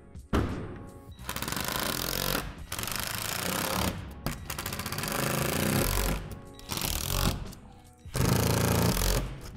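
Cordless impact driver running in about five short bursts, each with a rapid hammering rattle, driving screws into plastic shed wall panels. Background music plays underneath.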